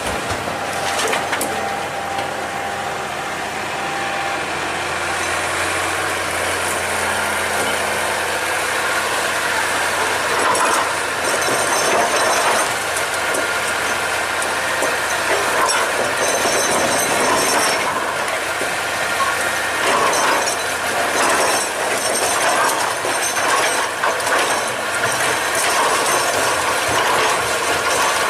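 Excavator working: its diesel engine running steadily under a clatter of metal clanks and rattles, which gets louder and busier from about ten seconds in.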